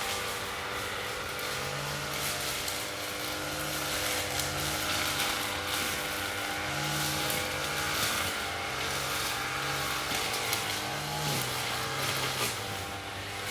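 Lawn mower engine running steadily, its low note swelling and easing in a regular pulse about every second and a half.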